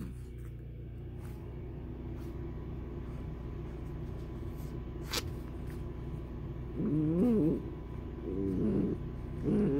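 Puppy's play growls: short wavering grumbles about seven, eight and a half and nine and a half seconds in, over a steady low hum.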